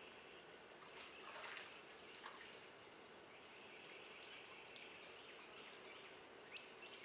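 Faint swamp ambience: a bird repeats a short high note about once a second over a soft background of other bird and insect sound, with a brief soft rush of water about a second in.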